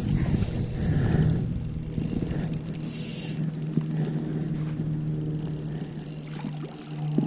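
A landing net is pushed through reeds and water as a trout is netted, with irregular rustling and swishing in the first couple of seconds. A steady low hum carries on underneath throughout.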